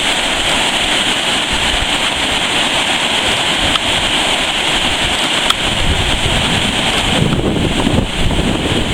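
Large waterfall cascading into a pool: a loud, steady rush of falling water. A low rumble joins it about six seconds in.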